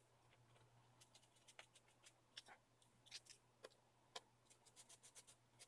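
Faint, scattered small clicks and ticks of a screwdriver working the tiny screws that hold a laptop's LCD panel in its lid, over a low steady hum.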